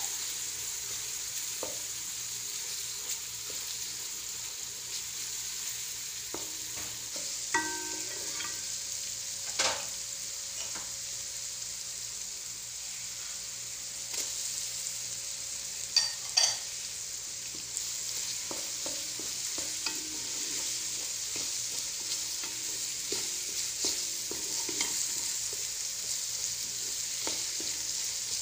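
Chopped vegetables sizzling steadily in hot oil in a pot, stirred with a wooden spoon that knocks against the pot now and then, with a few sharper knocks.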